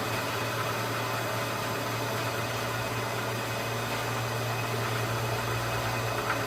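Bridgeport milling machine running steadily under a cut, a constant low motor hum beneath an even hiss of machining noise.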